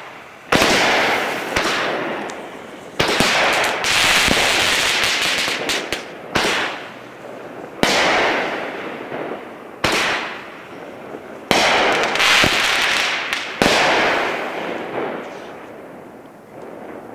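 Sun's Fireworks "Burn the Road" 8-shot consumer fireworks cake firing its shots one after another, about every two seconds. Each is a sharp bang followed by a long, fading hiss of the burst, and the sound dies away near the end.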